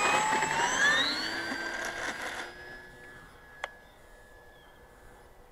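Electric motor and three-blade propeller of a Durafly BF-109E RC model plane whining at takeoff power, its pitch rising about a second in as the plane accelerates off the road, then fading away as it climbs out.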